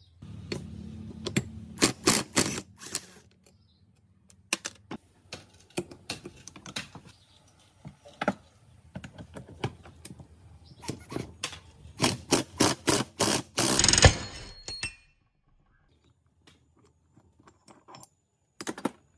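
Hand tools and metal parts clicking and knocking, a few sharp strikes at a time, over a low steady hum in the first few seconds. A quick run of rattling knocks builds up and stops suddenly about two-thirds of the way in, and two more knocks come near the end.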